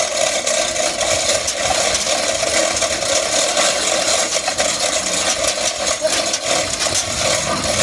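A vehicle engine running steadily, with rattling and clatter throughout.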